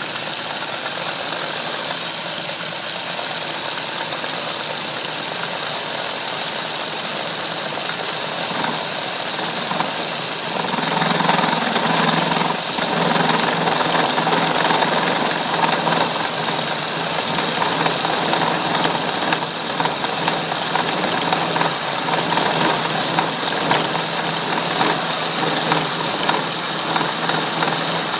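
Atlas lathe running with a milling attachment, an end mill cutting a slot in strap iron. About ten seconds in, the cutting noise gets louder and rougher as the end mill bites in harder.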